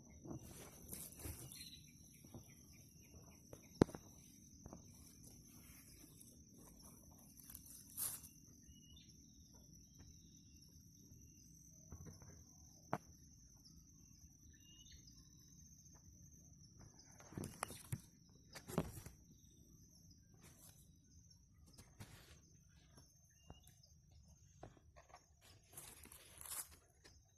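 Quiet outdoor ambience: a faint steady high whine, scattered knocks and rustles, and a few faint short bird chirps.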